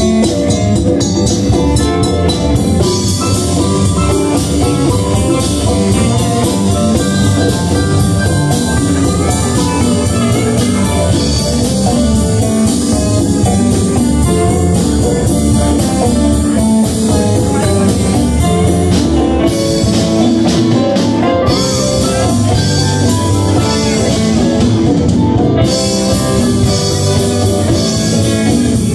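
Live band playing an up-tempo number on electric guitars and drums, amplified and loud.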